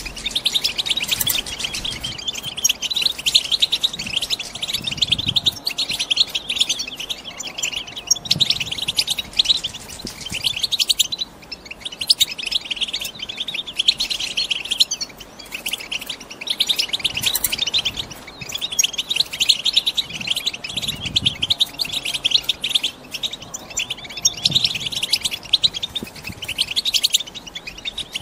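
European goldfinches chattering: dense, rapid twittering calls with only brief pauses, the excited 'batbata' chatter of females ready to breed.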